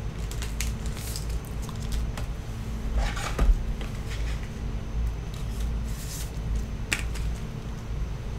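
Trading cards and their packaging being handled on a table: scattered small clicks and rustles, with a louder rustle and knock about three seconds in. A steady low hum runs underneath.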